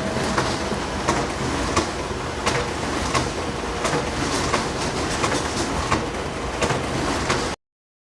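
Photocopier running, a steady mechanical whir with a sharp click about every 0.7 seconds as it cycles sheets through. It cuts off abruptly near the end.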